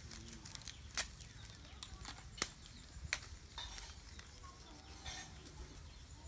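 Close handling noises: three sharp clicks, the first about a second in and two more close together a little after two seconds in, followed by short bits of rustling, over a faint steady low rumble.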